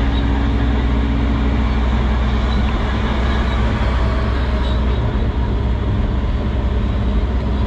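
Excavator's diesel engine running steadily under load with its hydraulics working as the bucket digs and dumps dirt, heard from inside the cab.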